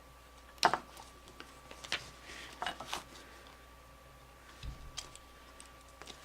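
A few sharp clicks and light taps of small tools and a metal buckle being handled during hand-sewing of a leather strap, the loudest click about half a second in.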